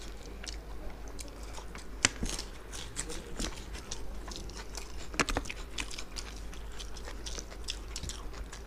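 Two people eating mutton biryani by hand close to the microphone: chewing and lip smacks, with a run of short wet clicks and a couple of sharper smacks about two seconds in and again just past five seconds.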